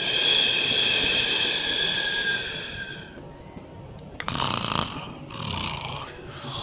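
Snoring: one long hissing, whistling breath of about three seconds, then after a short pause several shorter breaths.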